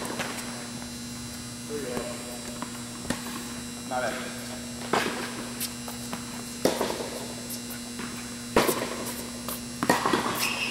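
Tennis ball struck by rackets and bouncing on an indoor hard court during a rally: a sharp pop every couple of seconds, over a steady electrical hum.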